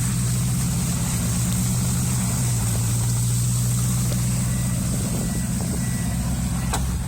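Car or truck engine running steadily, heard from inside the vehicle, with a steady hiss over it.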